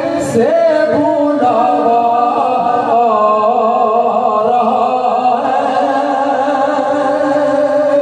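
A man singing a naat, a devotional poem in praise of the Prophet, into a microphone, drawing out long wavering notes.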